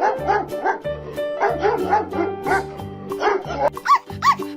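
A dog barking repeatedly over upbeat background music with a steady beat.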